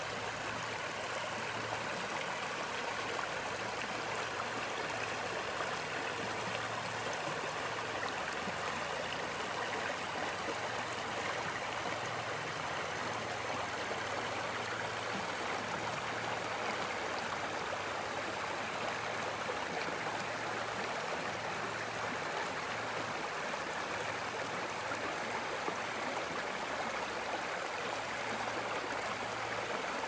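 Shallow, rocky river flowing over and around stones and boulders: a steady, even rush of running water.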